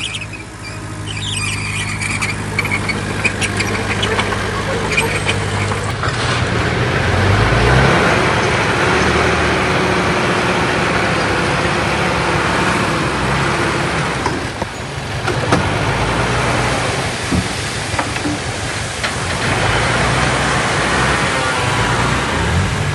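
Engine of a heavy earthmoving machine running steadily, then getting louder with a shifting pitch about seven seconds in, under a broad rushing noise.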